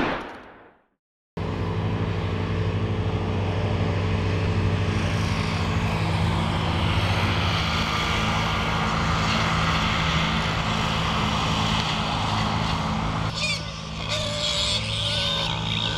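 An engine idling steadily: a low, even hum with a fast regular pulse that cuts in about a second in. Near the end a few short high squeaks sound over it.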